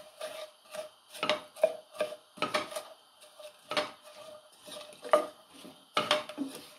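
Wooden spatula scraping and knocking against a non-stick frying pan while stirring sliced potatoes and onion rings in oil, in irregular sharp knocks about once or twice a second.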